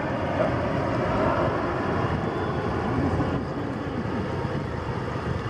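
A steady engine drone over a haze of water and wind noise.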